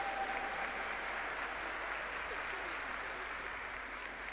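Audience applauding: a steady patter of clapping that slowly fades.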